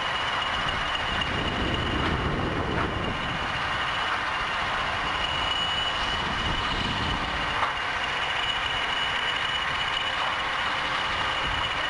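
Steady low engine rumble with a continuous high-pitched whine over it.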